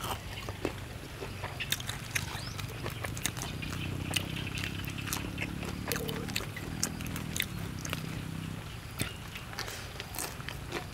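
Close-up chewing of crispy-skinned roasted field rat: many short crunches, crackles and mouth smacks, with meat torn apart by hand. A low drawn-out hum from the eater runs from about four to nine seconds in.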